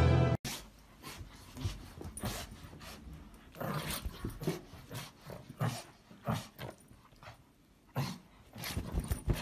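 Music cuts off suddenly at the start. Then a small dog makes short, irregular growls and grunts while it tugs at a blanket in play.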